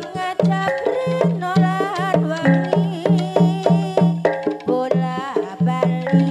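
Javanese jaranan gamelan music: struck metal keyed instruments and drums keeping a steady, even beat under a wavering high melody line.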